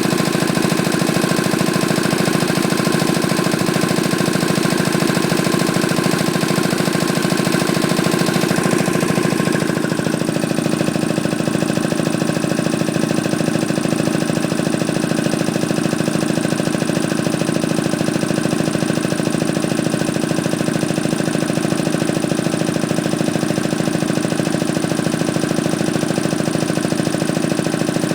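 Ingersoll-Rand T-30 two-stage reciprocating air compressor running steadily under load, pumping the tank up toward its 150 psi cut-out, with a fast even pulse from the pistons. About ten seconds in, the higher part of the sound drops a little while the pump keeps running.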